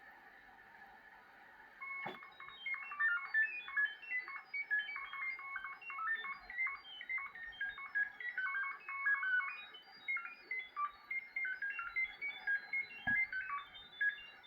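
Shortwave radio receiver playing a burst of short beeping tones that hop rapidly up and down in pitch like a quick melody, several a second, over faint band hiss; it starts with a click about two seconds in and stops near the end. The uploader takes it for a possible data transmission.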